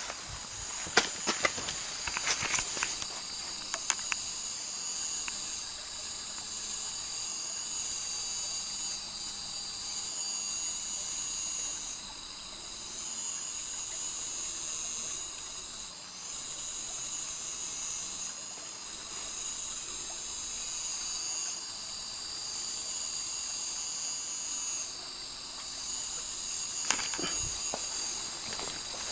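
Steady high-pitched chorus of rainforest insects, with a few short clicks and knocks in the first seconds and again near the end.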